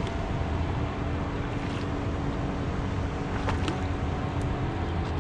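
Steady wind rumble on the microphone under the distant drone of a motorboat, with a few short splashes around the middle as a hooked American shad thrashes at the surface near shore.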